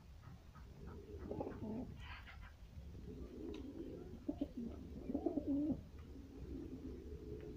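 Domestic pigeons cooing: several low, rolling coos that waver in pitch, about a second and a half in and again around four to six seconds in, with faint clicks in between.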